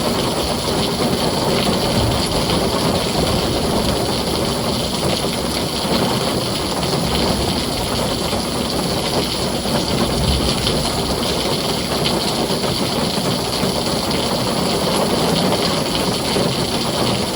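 Heavy rain drumming steadily on a tin roof, an even, unbroken rush of sound.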